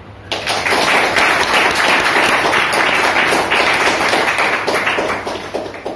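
Audience applauding: loud, dense clapping that starts suddenly and tails off near the end.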